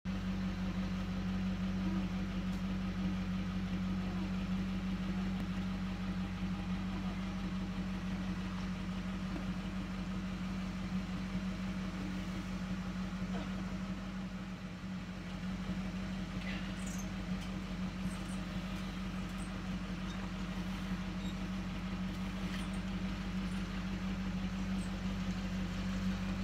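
Pickup truck engine idling steadily, a low even hum, with a few faint light clicks in the second half.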